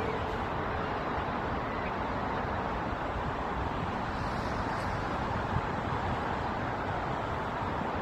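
Steady, even hum of road traffic, with no distinct events standing out.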